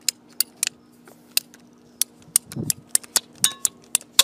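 Ratcheting PVC pipe cutter clicking as it is squeezed shut through 3/4-inch PVC conduit, a sharp click about three times a second.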